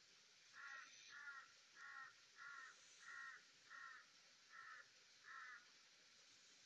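A bird calling eight times in a steady series of short, harsh calls, about three calls every two seconds, faint over a light hiss.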